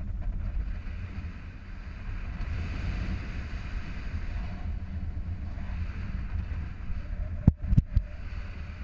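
Airflow rushing over an action camera's microphone in paraglider flight, a steady low rumble. A few sharp knocks come close together near the end and are the loudest sounds.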